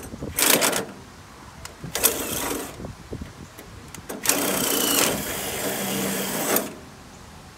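Cordless drill boring into a metal gas-grill burner tube in three bursts, the last and longest running about two seconds before it stops suddenly.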